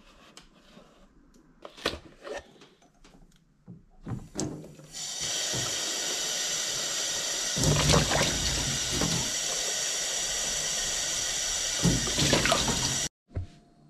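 A kitchen tap runs into a stainless-steel sink and into an empty paper milk carton being rinsed out, with the splashing swelling as the carton fills and is tipped out. The water comes in about five seconds in and cuts off suddenly near the end. Before it come a few light clicks and rustles of the carton being handled.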